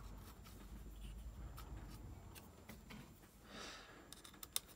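Faint scrapes and light clicks of a small screwdriver driving a screw, with hands handling the circuit board of a Concept2 PM3 monitor; a brief scrape about three and a half seconds in.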